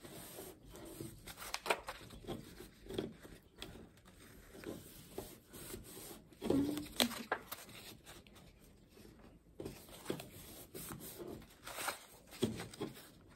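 A sheet of paper being folded back and forth into an accordion fan and creased flat by hand: irregular rustling and rubbing of the paper with each fold and press.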